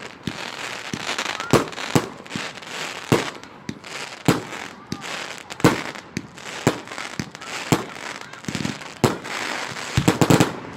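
Fireworks going off: sharp bangs at irregular intervals over a steady crackling haze, with a quick run of several bangs near the end.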